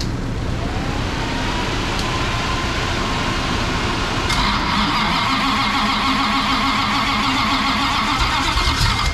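Chrysler 440 big-block V8 on an engine run stand being started hot, to see whether it fires right back up: a faint whine at first, then about four seconds in the starter cranks it with an even, rhythmic beat for about five seconds.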